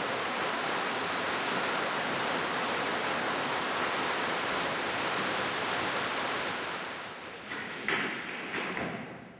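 A steady, loud hiss that starts abruptly and holds even for about seven seconds, then fades, with a few sharp clicks near the end.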